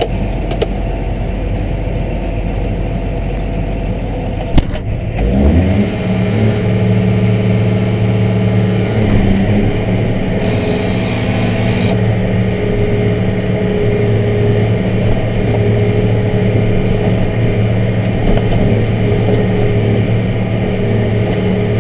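Tractor engine heard from inside the cab, running low at first, then revving up after a knock about four and a half seconds in and holding a steady, louder pitch while pulling a dirt pan.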